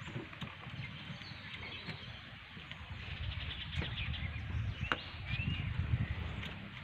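Riverside ambience from an open boat: a low rumble of wind and water under a few bird calls, including two short curved whistles about five seconds in, with scattered sharp clicks.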